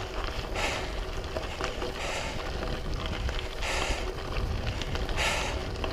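Bicycle riding with low wind rumble on the microphone and the rider's heavy breathing, a hissing breath about every second and a half.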